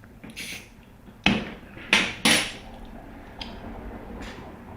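A few sharp knocks and clinks about a second apart, the beer container and drinking glass being handled and set down on a hard surface.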